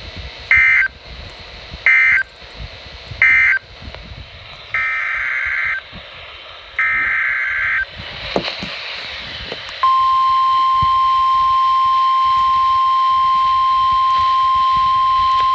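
Emergency Alert System data tones: three short warbling bursts of the SAME end-of-message code, then two longer header bursts. About ten seconds in, the steady 1050 Hz NOAA Weather Radio warning alarm tone starts and holds. It announces the next warning.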